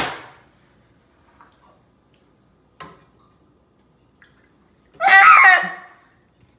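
Milk being poured in, with a sharp knock at the start and a loud splashing burst about five seconds in.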